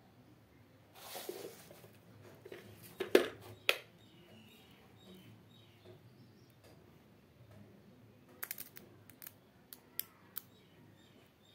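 Handling noises of small hard parts: a short rustle about a second in, then scattered sharp clicks and taps. The loudest come about three seconds in, and a quick run of them follows in the second half.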